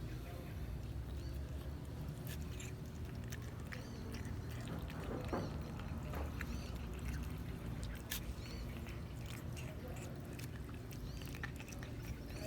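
Cat eating tuna: many small, irregular wet clicks and smacks of chewing and licking, over a steady low background hum.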